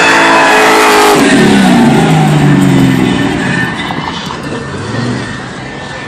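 Pickup truck engine revving hard at high rpm; about a second in the revs drop and the sound fades over the next few seconds.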